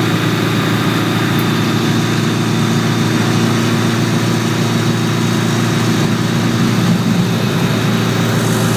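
Light single-engine plane's piston engine and propeller running steadily at about 1700 rpm, heard from inside the cabin.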